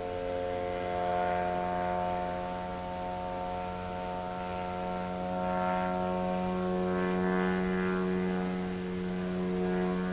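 Engine of an RC tow plane droning steadily at a distance while it pulls a scale glider on tow, its loudness swelling and easing slightly.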